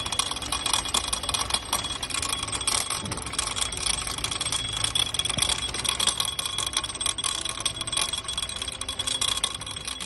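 2012 Kia Soul engine running with a rapid, continuous metallic rattling and clicking from the alternator mount, with a steady high whine underneath. The noise comes from the bottom alternator bolt, which the mechanic found to be the culprit.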